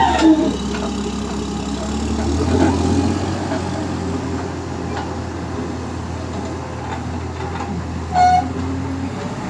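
Diesel engine of a large motor grader running steadily with a low hum as the machine works the dirt road. A brief high-pitched tone sounds once, about eight seconds in.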